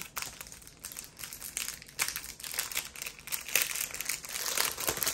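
Thin plastic crinkling and rustling as hands handle small plastic bags of diamond painting drills, in irregular crackles that grow busier and louder in the last couple of seconds.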